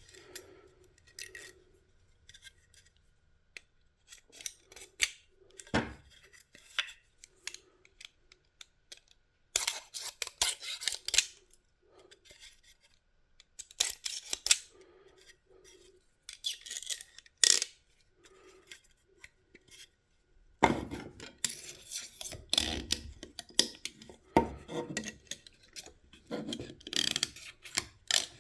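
Flashing being cut and scraped off a 3D-printed plastic part, in irregular short bursts of scraping with sharp clicks between quiet pauses.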